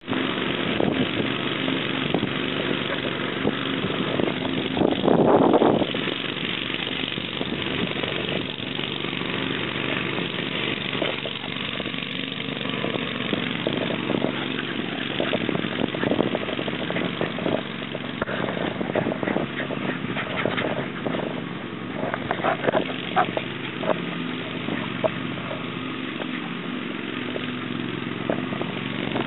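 A small engine running steadily, with a swell in loudness about five seconds in.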